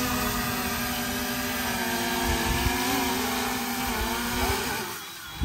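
A steady, slightly wavering motor drone over a loud hiss, both fading out just before a short knock at the end.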